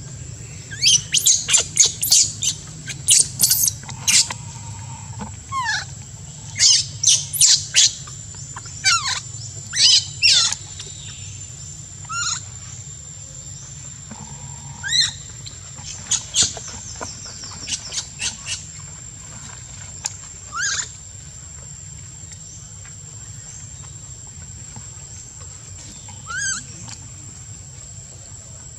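Baby macaque crying: short, high-pitched squeals in quick clusters, thick in the first ten seconds and sparser after, the last one near the end.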